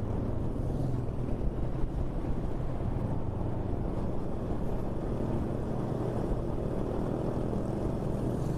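Motorcycle engine running at a steady pitch while riding, over a constant low rumble.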